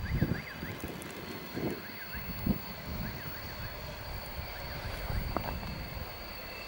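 Wind buffeting the microphone over the running of a Latvian ER2 electric multiple unit, with a steady high whine.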